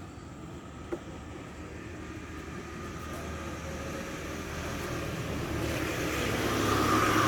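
A vehicle's noise rising steadily louder as it approaches, with a single short click about a second in.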